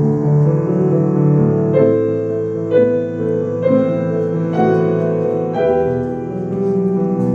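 Background piano music, a slow melody with notes struck about once a second over held chords.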